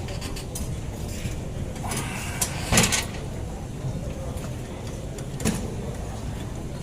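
Leg extension machine worked at full stack weight: a few short clanks and clicks from the weight stack and pivots, the loudest about three seconds in, over steady gym room noise.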